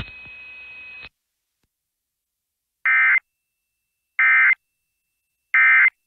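Emergency Alert System end-of-message data: three short, identical, buzzy digital bursts about a second and a half apart, the signal that closes the weather radio alert. Before them, a second of faint hiss with a thin steady tone cuts off.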